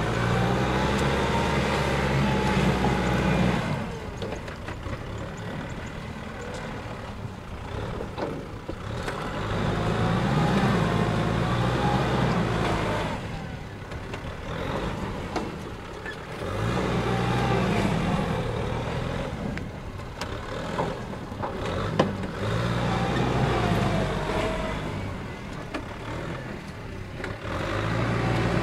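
Kubota M6040SU tractor's four-cylinder diesel engine labouring as it drags a loaded trailer through deep paddy mud. It revs up and eases off again every six or seven seconds. A single sharp knock comes about three-quarters of the way through.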